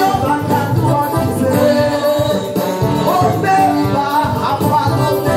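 Live worship music: a woman sings a song into a microphone over band accompaniment with a steady beat.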